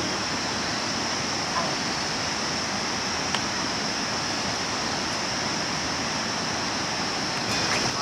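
Steady rushing outdoor noise with a constant high-pitched hum on top, and a single faint click a little past three seconds in.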